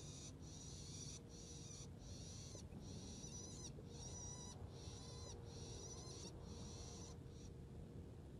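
A bird calling: a run of about ten high-pitched calls in quick succession, each under a second long, some wavering or trilling, ending near the end.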